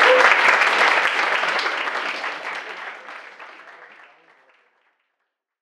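Theatre audience applauding at the end of a play. The clapping fades away to silence over about four and a half seconds.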